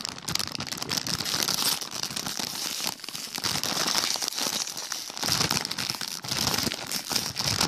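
Crinkling and crackling of a potato chip bag being handled and pulled open, with short pauses about three and five seconds in.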